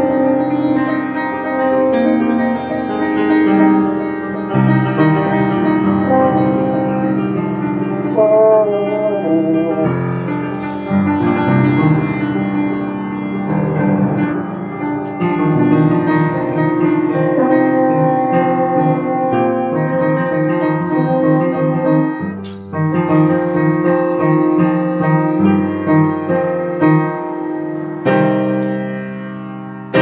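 Instrumental band music led by piano, with French horn, playing steadily with a brief break about two-thirds of the way through.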